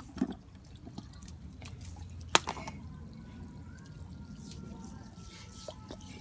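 Water spraying and dripping from a garden hose spray nozzle as a puppy paws and bites at it, with a few sharp knocks, one loud one about two seconds in.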